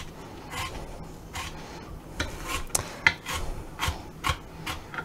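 Chef's knife mincing onion on a plastic cutting board: a quick, uneven run of chopping strokes, about two or three a second.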